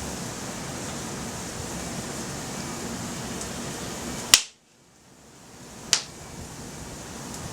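A campfire of slightly damp wood burning in the wind: a steady hiss with two sharp pops from the burning wood, the louder one about four seconds in, after which the background briefly drops away and fades back, and a second pop a moment later.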